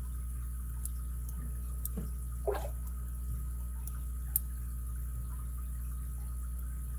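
Faint scattered clicks and taps of a lock pick working the pins of an ABUS 83CS/55 padlock under light tension, with one sharper click about two-thirds through, over a steady low hum.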